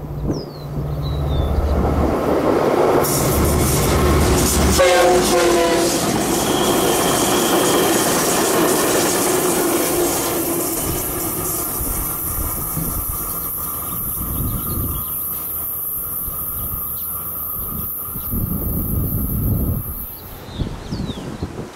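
A diesel train passing close by: the locomotive's engine hum, a short horn blast about five seconds in that drops in pitch as it goes by, then a long steady rush of wheels on rail that cuts off near the end.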